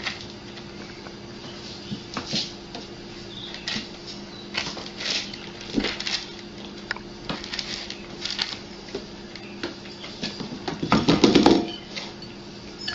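Cats eating dry kibble from bowls: scattered clicks and crunches as the pellets rattle against the bowls, with a louder clatter about eleven seconds in. A faint steady hum runs underneath.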